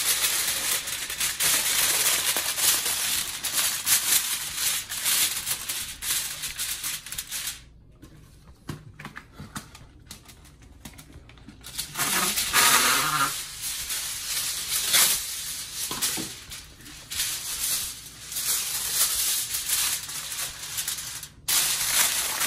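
Kitchen handling noise: dense rustling and clatter of food being readied, dropping quieter for a few seconds midway, with a brief vocal sound just after.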